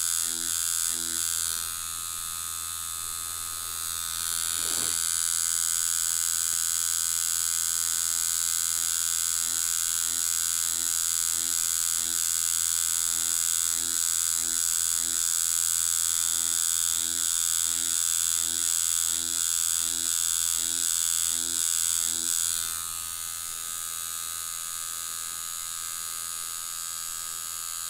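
Deki Irons Sensei rotary tattoo machine running with a steady electric buzz as it shades into practice skin. The buzz is louder from about four seconds in until about twenty-two seconds in, then softer.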